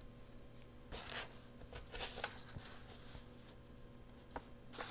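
Faint rustling and rubbing of paper being handled and glued down, with a couple of soft swipes, a light tap, and a sharp click near the end.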